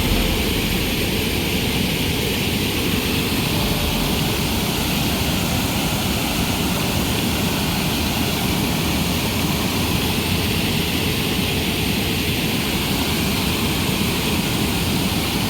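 River waterfall: the steady, even rush of falling water.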